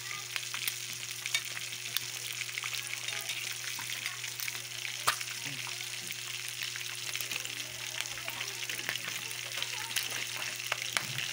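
Pork bone pieces sizzling and crackling in hot oil in a wok as they fry golden brown, with a steady hiss of many small pops and one sharper pop about five seconds in. A metal spatula stirs and turns the pieces at times.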